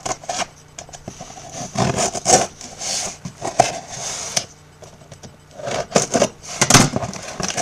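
Scissors sawing and scraping through packing tape on a cardboard shipping box, with cardboard rubbing, in irregular scraping strokes and a few sharper ones.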